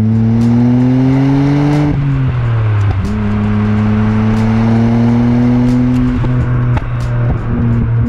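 Nissan Skyline R34 GT-R's twin-turbo RB26 inline-six running through a new full-titanium aftermarket exhaust, heard close to the tailpipe while driving. The exhaust note rises under acceleration and drops away about two seconds in, as at a gear change or lift-off. It then climbs again slowly and holds a steady drone.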